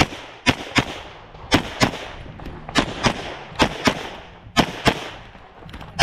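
Springfield Prodigy pistol fired in quick pairs, about five double-taps roughly a second apart. Each shot is sharp with a short echo.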